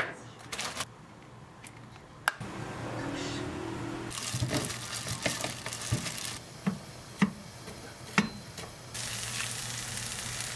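Seasoned raw beef squelching as a plastic-gloved hand kneads it in a plastic bowl, with irregular wet squishes and crinkles. Then, about nine seconds in, beef sizzling steadily in a hot frying pan as a wooden spatula stirs it.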